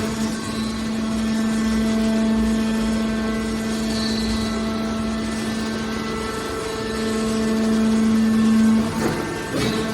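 Hydraulic metal baler running: its hydraulic pump and motor give a steady hum over machine noise, with a few knocks near the end.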